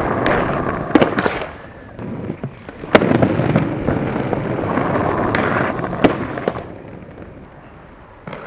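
Skateboard wheels rolling on pavement, with sharp clacks of the board striking the ground about one, three and six seconds in; the rolling fades after about seven seconds.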